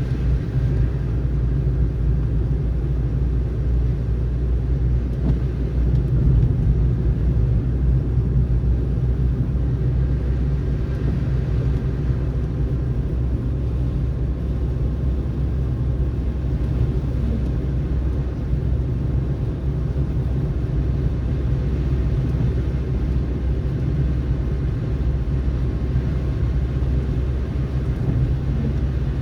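Steady low rumble of a car driving on a snowy road: tyre and road noise that holds even, with no change in speed or pitch.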